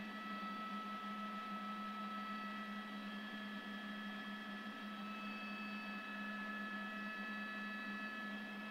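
Steady cabin noise of a news helicopter heard through the crew's open intercom mic: a low hum with several high whine tones, unchanging throughout.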